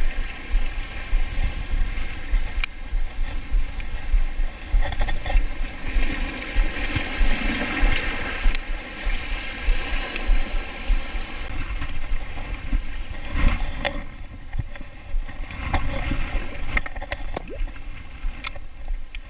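Sea water surging and washing around shoreline rocks, with wind buffeting the microphone as a constant low rumble. The wash swells about six to ten seconds in, and a few sharp clicks come near the end.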